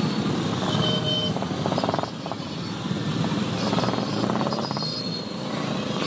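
Many motorcycle engines running together at low speed in a packed column, heard from among the riders, with a couple of brief higher tones cutting in.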